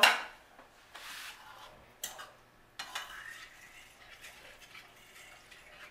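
Cooking utensils handled at an electric skillet: a brief scrape about a second in, then two light clinks.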